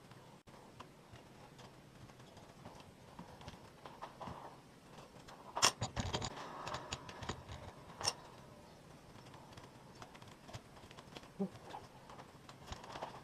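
Scattered light clinks and knocks of hard objects being handled, with a sharper clank about five and a half seconds in and another about eight seconds in.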